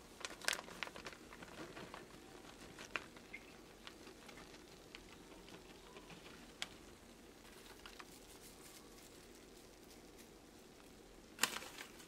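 Shredded cheese sprinkled by hand onto fried rice in a pot: a soft patter of scattered light clicks, with a short louder rustle near the end.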